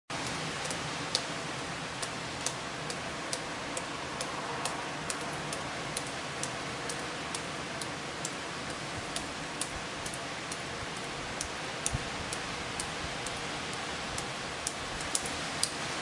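Storm wind rushing steadily through trees, with scattered sharp ticks a few times a second on top.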